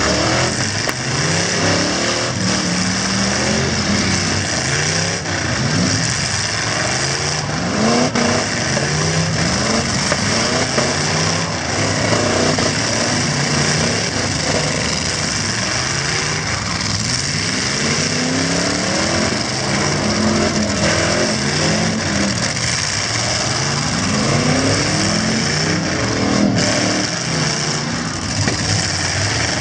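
Several V8 demolition-derby trucks revving hard together, their engine notes repeatedly rising and falling as they accelerate, spin their tyres and back up, with a few sharp knocks among them.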